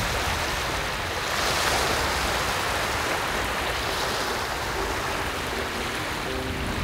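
Small sea waves washing onto the shore as a steady wash, swelling about a second and a half in. A few soft held musical notes come in near the end.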